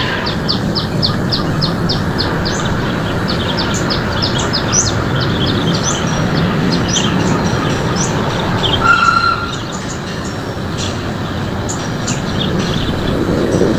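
Small birds chirping: a fast run of high, evenly repeated chirps, then scattered short chirps and one brief whistle about nine seconds in, over a steady low rumbling noise.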